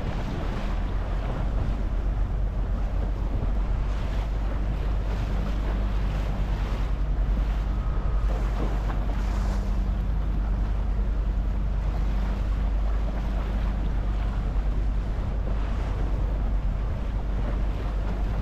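Boat engine running steadily as a low hum, under gusting wind on the microphone and the wash of sea water against the hull.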